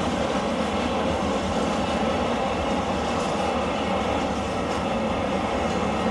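Steady running noise of a stationary diesel rail vehicle: an even rumble and hum that stays unchanged throughout.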